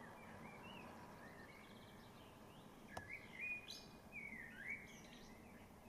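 Common blackbird singing faintly: short fluting, warbling phrases that grow clearer about halfway through, one ending in a brief high twitter.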